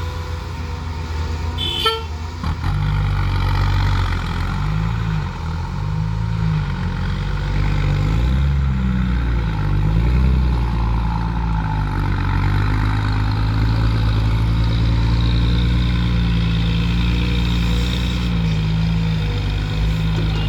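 Cat 323 GC excavator's diesel engine working under hydraulic load while loading soil, its pitch wavering up and down with the digging and swinging. There is a brief horn-like toot about two seconds in, just before the engine loads up.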